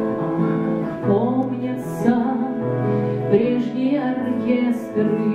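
Acoustic guitar playing the chords of a song accompaniment, with a woman's voice singing over it.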